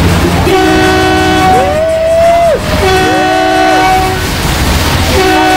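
Vehicle horns honking in long, overlapping blasts of different pitches, in three bursts, answering a honk-for-peace sign, with passing traffic rumbling underneath.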